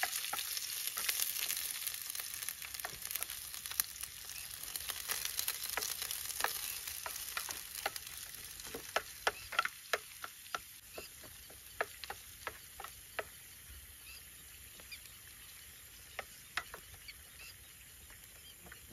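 Chopped onion frying in hot oil in a pan, sizzling and gradually fading, while a spatula stirs it with repeated clicks and scrapes against the pan.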